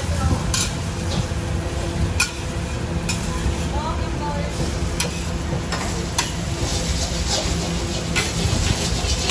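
Short noodles sizzling on a flat steel griddle as a metal spatula scrapes and taps against the hot plate, sharp clicks about once a second, coming faster near the end, over a steady low hum.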